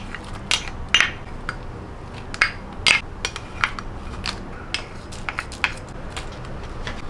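Kitchen utensils knocking and clinking, about a dozen irregular sharp strikes, the loudest about a second in and near three seconds, over a steady low hum.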